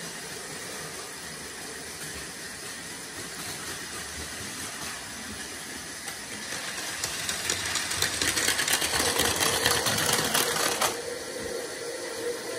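Plarail Advance battery-powered toy trains running on plastic track: a steady small-motor whir with wheel clatter, growing louder from about halfway as a train comes close, then dropping off suddenly near the end.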